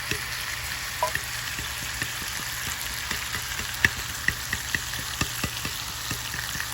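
Chicken frying in a hot pan: a steady sizzle with many small pops and clicks, as a knife pushes the pieces around so they cook evenly.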